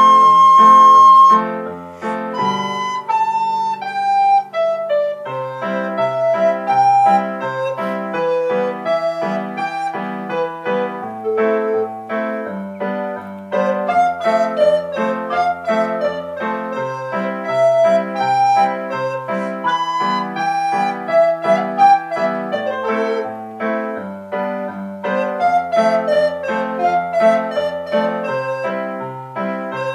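Tenor recorder playing a melody note by note over a piano accompaniment of steady repeated chords.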